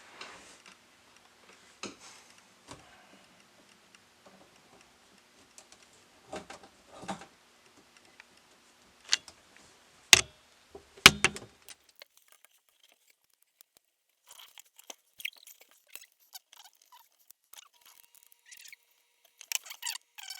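Plastic and metal faucet parts clicking and knocking as the weight is fitted onto the pull-down sprayer hose, with two sharp loud clicks about halfway through, then a run of faint quick squeaky ticks.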